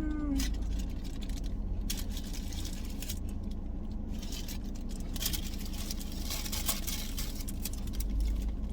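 Steady low hum of a car cabin, with bouts of paper rustling and small clicks as fast-food wrappers and bags are handled, busiest about five to seven seconds in.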